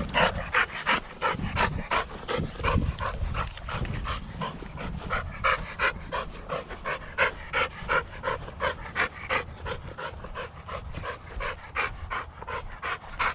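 A dog panting hard and steadily, about three breaths a second, winded from running.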